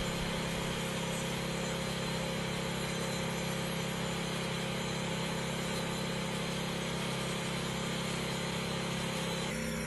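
Crack chaser, a grinder fitted with a concrete crack-chasing blade, running steadily as it opens up a crack in a concrete driveway; an even, unchanging machine hum.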